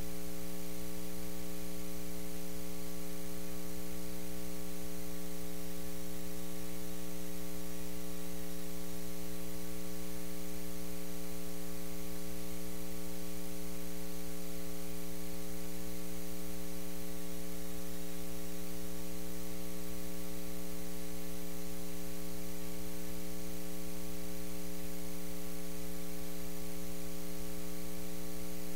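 Steady electrical mains hum: a buzz of several fixed tones stacked together, holding unchanged with no other sound over it.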